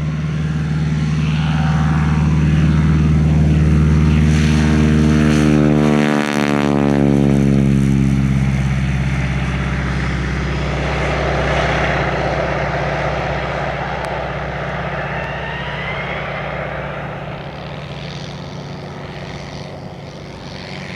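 Piston-engined propeller plane passing close by on departure: a steady engine drone that is loudest around five seconds in, with a sweeping change in tone as it passes about six seconds in, then slowly fading as it climbs away.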